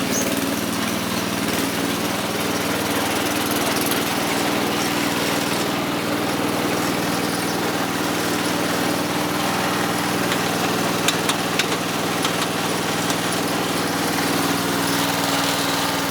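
Western Auto Wizard riding mower's 12 hp engine running steadily, a few sharp clicks about eleven seconds in.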